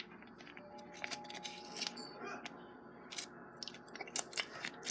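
Scattered light clicks and crinkles from handling a plastic frosting pouch as it is opened and squeezed over a mug cake.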